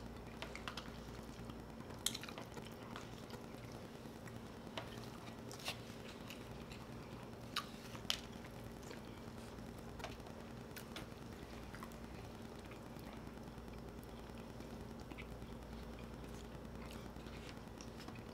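Quiet eating sounds: chewing, with scattered sharp clicks of plastic forks and fingers against paper plates, over a faint steady hum.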